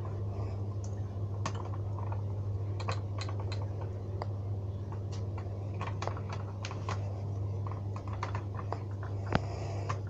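Scattered small plastic clicks and taps of a fingertip pressing the test button on an Ei Electronics Ei141 ionisation smoke alarm, over a steady low hum. The alarm does not sound: its battery is flat.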